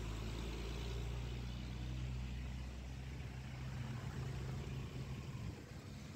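A motor vehicle's engine running with a low, steady hum over road noise, fading about five and a half seconds in.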